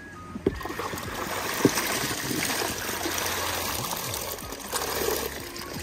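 Water trickling and pouring steadily, starting about half a second in, with a few light knocks.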